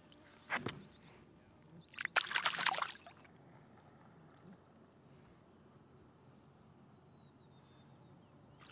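Water splashing briefly, about two seconds in and for about a second, from a small caught fish going into the water, with a short sharp knock about half a second in.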